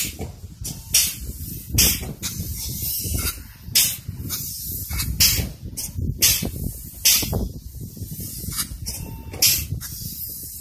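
Polyurethane spray foam gun hissing in short, sharp bursts, roughly every one to two seconds, over a steady low rumble.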